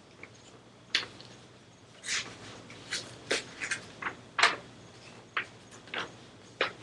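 A sheet of paper being folded and handled: about a dozen short, sharp rustles and crinkles at uneven intervals, the loudest about four and a half seconds in.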